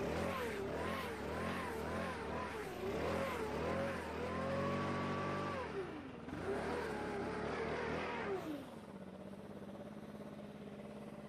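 Leaf blower engine being throttled up and down, its pitch rising and falling several times, then dropping to a steady lower idle about eight and a half seconds in.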